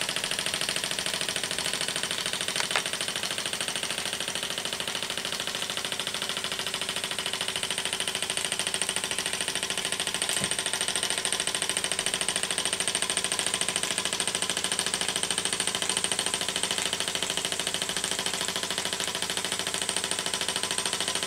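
Märklin toy steam donkey engine running steadily under steam, with a fast, even mechanical beat from its cylinder and crank. A single light click sounds about three seconds in.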